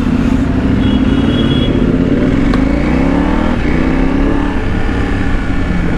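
Motorcycle engine running under way, heard from the rider's seat: its pitch climbs steadily as it accelerates, then falls sharply about three and a half seconds in and settles again.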